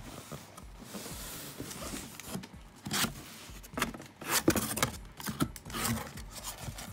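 Cardboard box being opened by hand: a soft rubbing for about three seconds, then a quick run of scrapes and knocks as the box's end flap is pulled open against a styrofoam insert.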